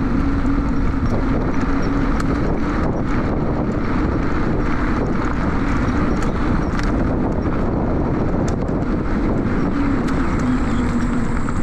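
Honda U-Be Cross electric scooter riding over a gravel path: wind rushing on the microphone and tyres rolling over grit with scattered small clicks, under a low steady hum from the electric motor that is strongest in the first couple of seconds and returns briefly near the end.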